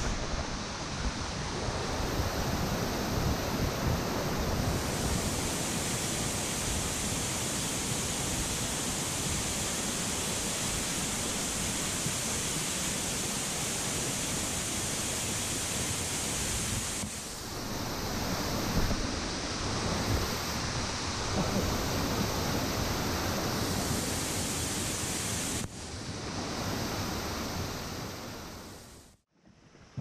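Waterfall close by: a steady, dense rush of water falling onto rocks, easing briefly about three-quarters of the way through and cutting off suddenly just before the end.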